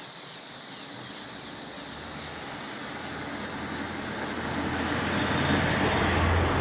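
A road vehicle approaching and crossing the bridge: engine hum and tyre noise grow steadily louder, peaking near the end.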